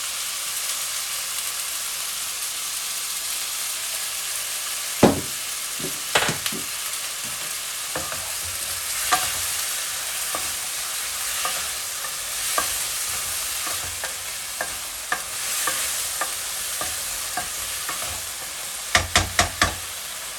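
Chicken wings sizzling in a hot pan with soy sauce, a steady frying hiss, stirred with a utensil that knocks against the pan now and then, with a quick run of four knocks near the end.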